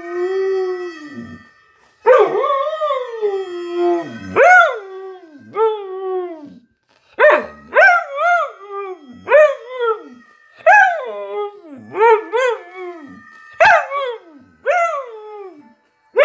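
Samoyed howling in a string of short rising-and-falling howls, starting with one longer call and coming faster from about halfway on.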